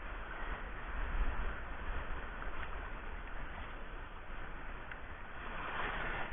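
Wind buffeting the microphone, a fluctuating low rumble over a steady rushing noise.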